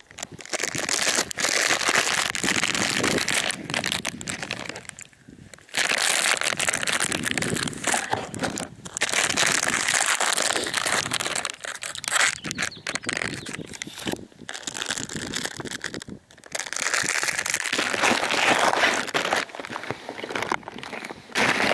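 Handling noise: fabric rubbing and crinkling against the camera's microphone, in loud stretches broken by several short pauses.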